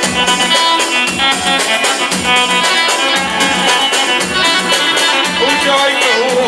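Upbeat Iraqi party music between sung verses: a melody line over fast, dense percussion, with no singing.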